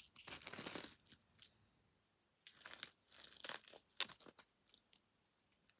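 Costume jewellery being rummaged and handled: beads and chains rustling and clicking against each other in two spells, the second from about two and a half seconds in, then only a few light clicks.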